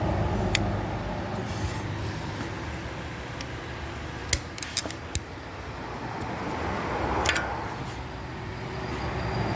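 A few sharp metallic clicks and taps of a screwdriver working on a brake caliper, over a steady low rumble that swells and fades about two-thirds of the way through.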